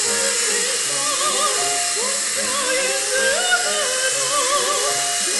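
Music with a wavering vibrato melody, over the steady high whine of a mini radio-controlled helicopter's electric motor and rotors.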